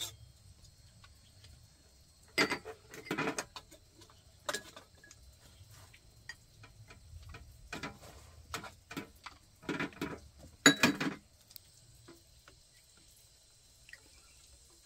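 Irregular light knocks and clicks, single and in short clusters spread over several seconds, the loudest about eleven seconds in.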